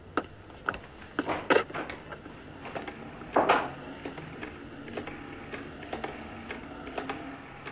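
Telephone handset being lifted and a number dialled: a run of irregular mechanical clicks and short rattles.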